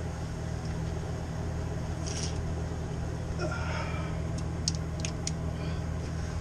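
A few light metallic clicks and clinks of hand tools working on bolts, over a steady low hum.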